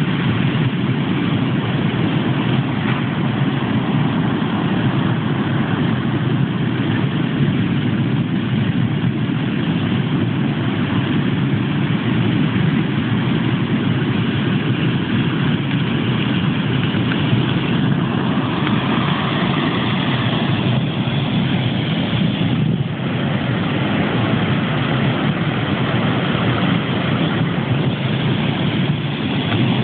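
Atlantic surf breaking on a sandy beach: a steady, low rushing roar with no let-up.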